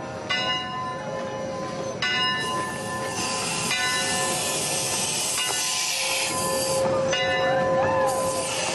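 Wood-burning 4-4-0 steam locomotive Eureka & Palisade No. 4 rolling slowly past, its bell ringing steadily. Steam hisses loudly from about two seconds in until about seven seconds in.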